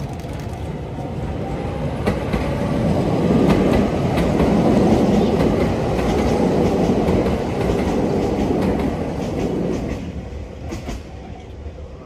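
Shintetsu electric commuter train passing close by: wheels rumbling and clattering over the rail joints, swelling to its loudest midway, then fading away.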